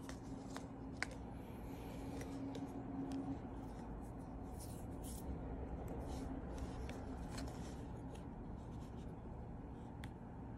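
Hands handling a folded paper insert leaflet and a plastic gacha capsule: soft paper rustles and scattered light clicks over a steady low hum.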